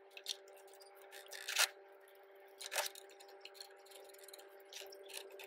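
Sharp metallic clicks and clinks of tools and parts being handled on a Yamaha RX100 engine's crankcase during disassembly, the loudest about a second and a half in, over a steady hum.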